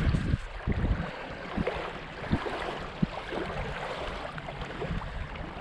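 Wind buffeting the microphone in uneven gusts, with a few faint knocks scattered through it.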